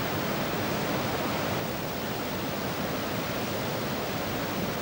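Steady rushing of white water pouring over a low waterfall and rapids.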